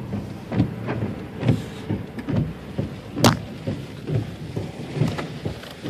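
Car cabin noise: the engine running with a low, steady hum while the car rolls slowly, and a sharp click about three seconds in.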